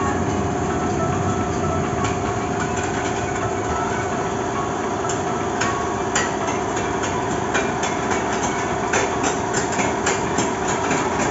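Small caterpillar-shaped kiddie roller coaster running on its steel track: a steady rumbling hum from the train, with sharp clacks of the wheels over the rails that start about halfway and come more often as the cars pass close.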